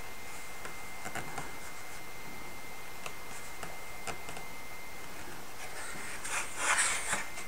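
Faint light taps of hands on a wooden model boat hull over a steady hiss and a thin high whine. About six seconds in comes a louder burst of rubbing and scraping as the wooden hull is lifted and turned over on a plastic cutting mat.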